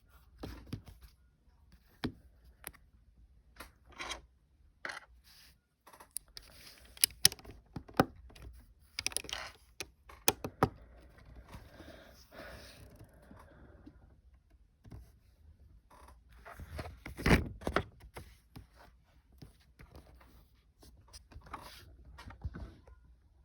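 Small plastic Lego pieces clicking and tapping as they are handled and pressed onto a build, in irregular sharp clicks with a stretch of soft rustling around the middle and the loudest cluster of clicks later on.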